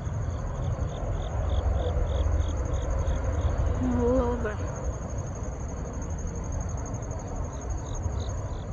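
Crickets singing: a steady high trill, with another insect chirping about four times a second over it. The chirping stops partway through and comes back near the end, over a low rumble.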